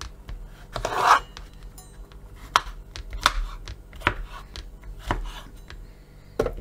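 Kitchen knife chopping peeled zucchini on a plastic cutting board: about seven sharp knocks as the blade goes through and hits the board, roughly one a second.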